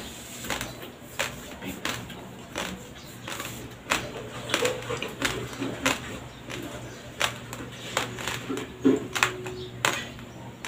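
Close-miked chewing of a mouthful of raw, uncooked white rice: irregular sharp crunches as the dry grains crack between the teeth, several each second.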